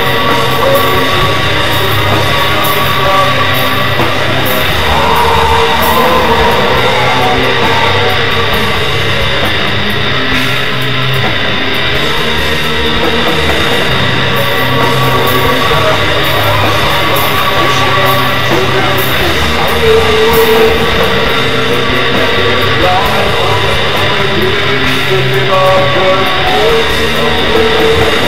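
Raw doom/black metal music with distorted guitars, playing loud and steady throughout.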